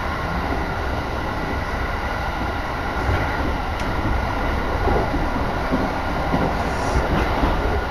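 Electric train running at speed, heard from inside the passenger car: a steady low rumble of wheels on the rails with a faint steady whine above it, swelling slightly in the second half.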